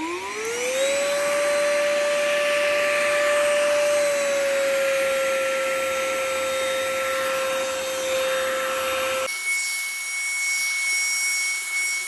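Chuboor cordless handheld vacuum running with a brush attachment on a shag rug. Its motor whine rises as it spins up in the first second, then holds steady with a rush of air. About nine seconds in, the sound switches abruptly to a higher, thinner whine.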